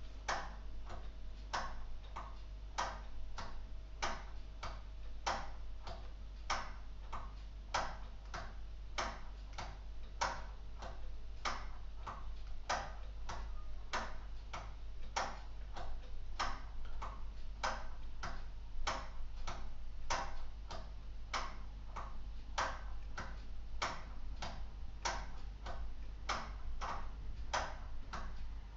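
Escapement of a purely mechanical LEGO Technic clock, driven by a wind-up motor, ticking steadily at about two ticks a second.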